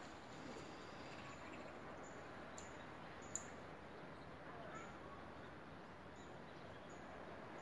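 Faint outdoor ambience: a steady hiss with a scattered handful of short, high chirps, and a sharp click about three and a half seconds in, with a softer one just before it.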